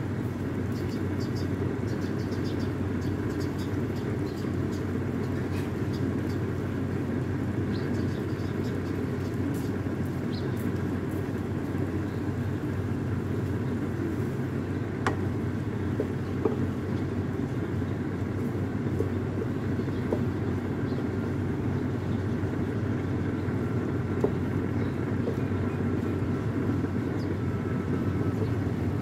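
A steady low rumble with a faint hum runs throughout. A few light knocks come from a wooden spatula against an aluminium pan as the stir-fry is turned.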